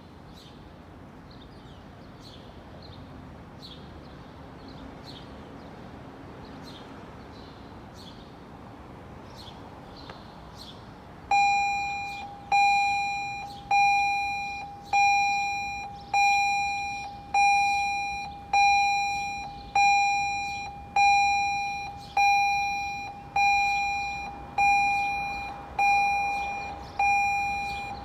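A railroad crossing warning bell starts ringing about eleven seconds in, sounding a clear ding a little more than once a second, each ding fading quickly. It signals that the crossing is activating for an approaching train. Before it there are only faint high chirps over a quiet background.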